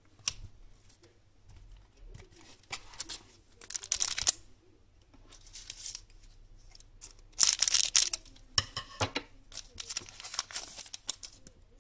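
A trading-card pack's wrapper being torn open and crinkled: several short tearing rustles, the longest about three-quarters of the way through, with a few light clicks between them.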